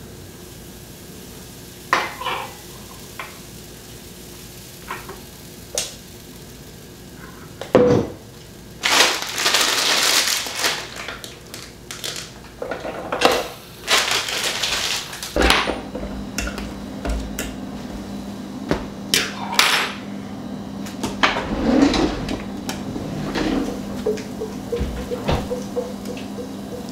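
Stainless steel mixing bowl and utensils clinking, knocking and scraping against the bowl and counter while waffle batter is mixed, with a few sharp knocks and stretches of stirring. A steady low hum comes in about halfway through.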